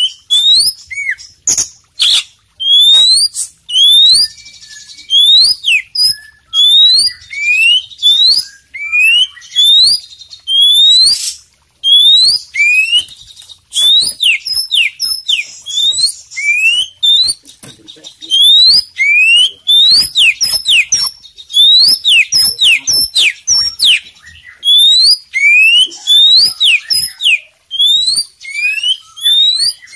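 Oriental magpie-robin singing loudly: quick series of repeated rising whistled notes, broken by harsh buzzy phrases and sharp clicks.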